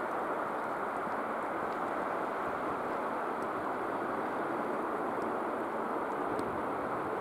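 EKr1 Tarpan electric multiple unit approaching through a station, giving a steady, even rushing running noise.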